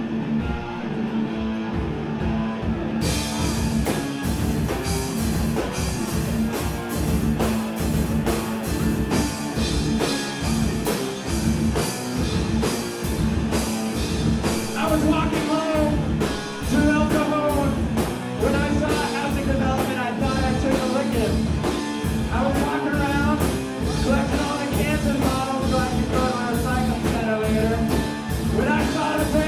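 Live rock band playing: electric guitar and keyboard, with the drum kit and cymbals coming in about three seconds in. Recorded from the back of the room, so the club's room sound is part of the mix.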